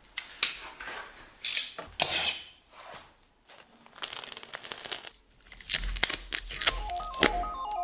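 Plastic stretch-wrap packaging being slit with a utility knife and torn and peeled off by hand, a series of irregular crinkling, ripping strokes. Background music comes in near the end.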